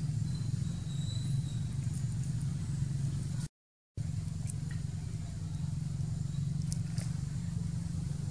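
Steady low rumble, broken by about half a second of complete silence a little past the middle.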